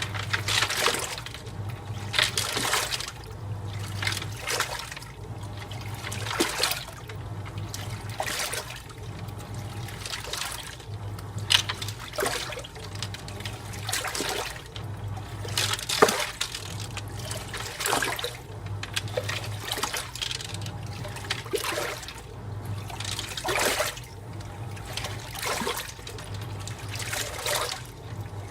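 AQUA MCW-C70 coin-operated 7 kg washing machine agitating during its rinse, the water sloshing in swishes about once a second as the drive motor's hum switches on and off with each stroke.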